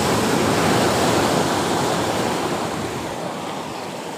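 Sea surf washing against the concrete breakwater blocks: a steady rush of water that swells about a second in and slowly eases off.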